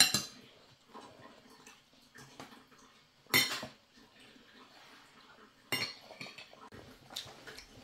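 A metal spoon scraping and clinking against a ceramic plate while scooping food, a few separate strokes. The loudest scrape comes about three and a half seconds in.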